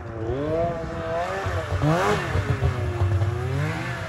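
Snowmobile engine revving up and down as the sled rides through deep snow, its pitch rising and falling several times, with a sharp rise and drop about halfway through as it passes close and pulls away.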